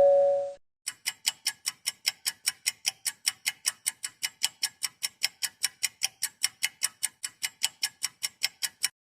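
The fading end of a two-note ding-dong chime, then a clock-ticking sound effect: even, sharp ticks at about five a second for some eight seconds, stopping abruptly.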